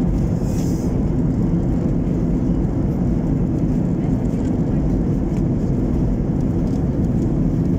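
Steady low rumble of cabin noise inside a Boeing 737-800 in flight: CFM56 engine and airflow noise heard through the fuselage.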